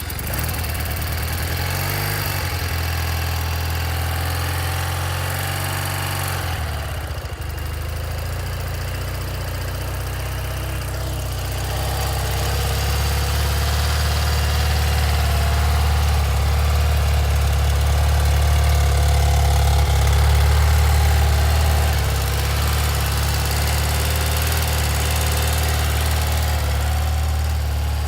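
1981 BMW R65's air-cooled flat-twin boxer engine idling steadily just after starting, its note changing briefly about seven seconds in and growing a little louder from about twelve seconds on.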